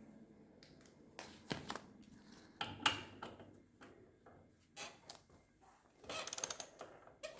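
Faint metallic clicks and scrapes of hand tools turning the threaded bolt of a bushing-press tool on a scooter engine mount, with a quick run of clicks about six seconds in.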